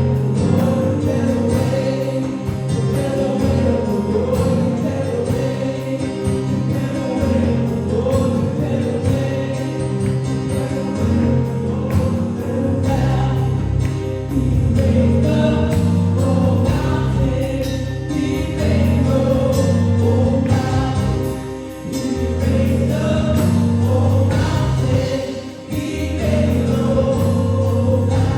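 Gospel worship music: a choir singing with a band, with held bass notes under the voices.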